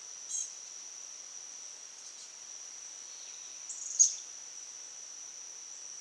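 Steady high-pitched insect drone, with a few short bird chip calls; the loudest, sharpest chip comes about four seconds in.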